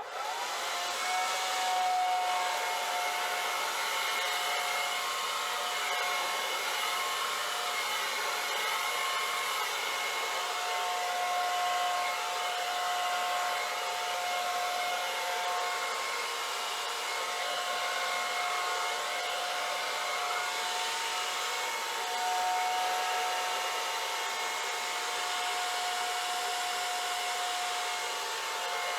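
Hair dryer running steadily, a rushing hiss of air with a steady motor whine, being used to blow wet acrylic paint across a pour. Its level swells slightly now and then as the dryer is moved.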